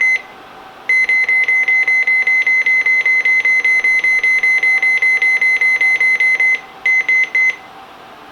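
Midland 74-200 weather radio's key beep repeating rapidly, a short high beep about six times a second while the clock's minutes are stepped. The beeping stops about six and a half seconds in, then a brief run of a few more beeps follows.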